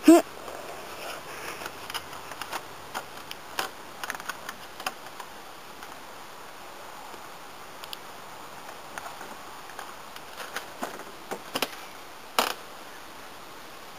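Scattered knocks, scuffs and clunks of someone climbing a wooden playset and handling and pushing through a plywood door, with a loud sound right at the start and one sharp knock near the end.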